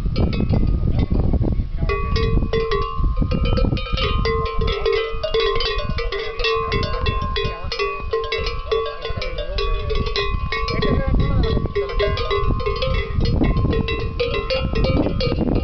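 Large cowbells on Tudanca cattle clanking and ringing continuously and irregularly as the cows move and graze. A low rumble sits under the bells at the start and again near the end.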